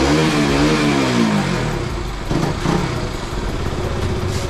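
KTM RC motorcycle engine revved in a few short throttle blips, pitch rising and falling, then settling to run steadily.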